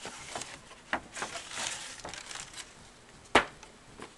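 Sneakers and their packing being handled during unboxing: scattered rustling and small clicks, then one sharp knock about three and a half seconds in.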